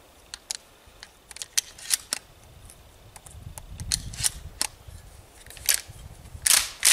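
Double-aught buckshot shells being pushed into a Remington 870 pump shotgun's tube magazine: a run of small metallic clicks. Near the end come two louder clacks as the pump action is worked.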